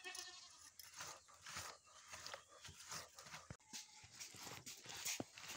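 Faint goat bleating, over soft scattered rustles and taps of hands smearing thick gram-flour batter onto taro leaves laid on banana leaves.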